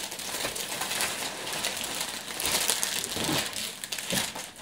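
Clear cellophane wrapping crinkling and rustling continuously as a cellophane-wrapped hamper is lifted out of a cardboard box.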